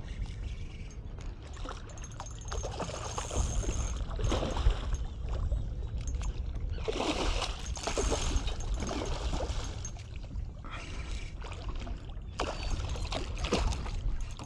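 Hooked redfish thrashing and splashing at the water's surface while being played on the line, in bouts, loudest about seven to nine seconds in and again near the end.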